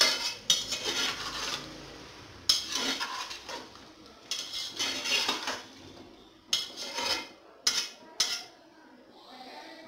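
Metal spoon stirring chicken and potato pieces in an aluminium pressure cooker: repeated scraping strokes against the pot's bottom and sides, with sharp clinks on the metal, in about seven bursts.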